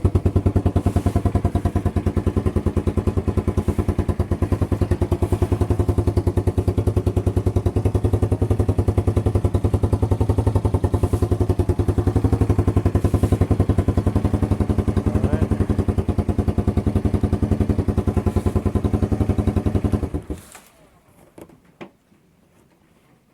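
1986 Honda 200SX ATV's single-cylinder four-stroke engine idling steadily while it warms up after a cold start, then cutting off suddenly about twenty seconds in.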